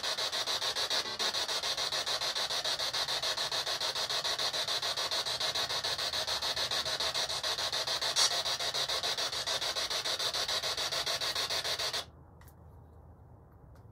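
Handheld ghost-hunting device putting out a loud, rapidly pulsing static hiss. It cuts off abruptly about twelve seconds in.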